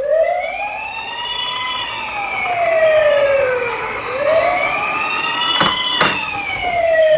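Wailing siren that starts abruptly, its pitch rising and falling slowly in cycles of about four seconds, with two short clicks about six seconds in.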